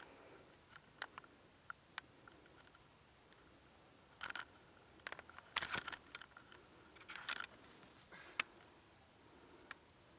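Steady high-pitched chorus of insects in summer woodland, with a few sharp clicks and short rustling noises over it; the loudest is a single click about eight seconds in.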